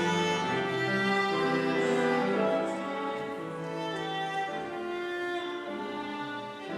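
Slow music played on bowed strings, in long held notes that move smoothly from one to the next.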